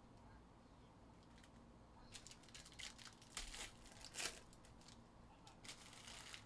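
Faint crinkling and tearing of a foil trading-card pack wrapper (Panini Prizm WNBA hobby pack) being ripped open and handled, a run of short crackles and rips starting about two seconds in.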